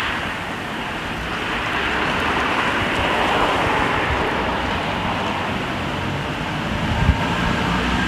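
Outdoor street ambience picked up by an on-camera Rode VideoMic with no foam windscreen and its high-pass filter on: a steady rush of breeze through the trees mixed with traffic noise. Near the end, low thumps of wind buffet the bare microphone.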